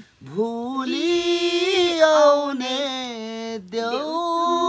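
A man singing a Nepali Bhailo song for the Tihar festival, unaccompanied, drawing out long, wavering notes. He breaks briefly for breath about three and a half seconds in.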